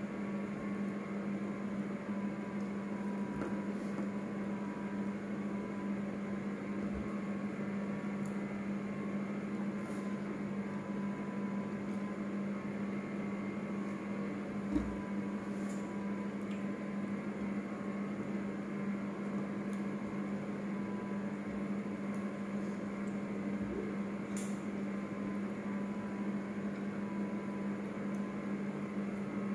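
Steady electrical hum with a fainter higher whine over it, and faint mouth and hand sounds of eating; one short knock about halfway through.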